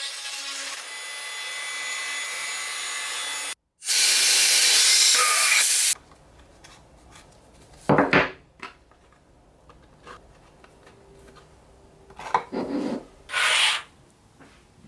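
A small power tool grinding against a workpiece while a new windshield is being shaped. It breaks off briefly and comes back louder, then stops abruptly. After that, a few short scraping and rubbing sounds follow.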